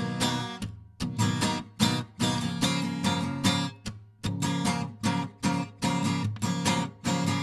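Guitar strumming chords in a steady rhythm with no singing: an instrumental passage between sung lines of a song.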